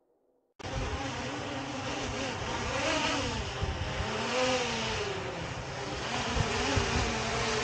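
DJI Air 2S quadcopter's propellers whirring close by, their pitch wavering up and down. The sound starts suddenly about half a second in.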